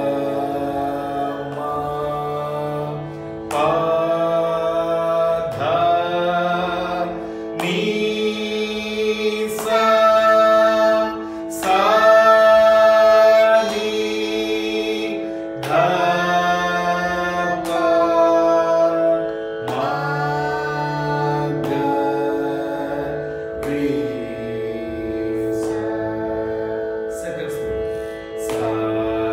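Sruti box playing a steady Carnatic drone, with a voice singing long held notes over it that change pitch every second or two, sliding slightly into each one.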